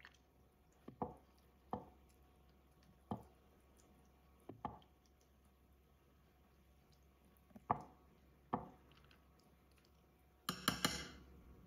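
Metal fork clinking and scraping against a ceramic baking dish as it stirs berries in their juice: faint scattered clicks a second or more apart, then a louder quick run of clinks near the end.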